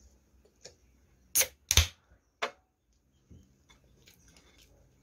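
Close-miked chewing of food: faint wet mouth clicks, with three or four loud, sharp crunches between about one and a half and two and a half seconds in.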